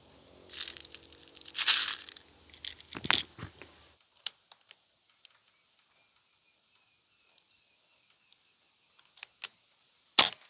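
Crinkling, rattling handling noises with a few clicks as pellets are handled in their metal tin. Then a few faint ticks, and about ten seconds in a single sharp shot from a Beeman air rifle, the loudest sound.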